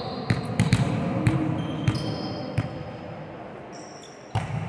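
Volleyballs being struck and bouncing on a hard court floor. Sharp, irregular smacks come several in the first three seconds, then one more near the end.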